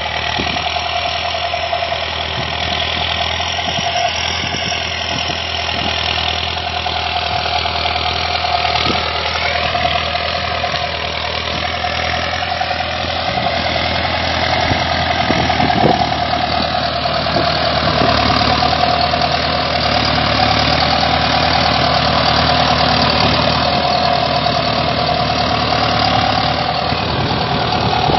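Ford 6610 tractor's four-cylinder diesel engine running steadily under load as it pulls a disc harrow through clay soil, with a steady high whine over the engine note.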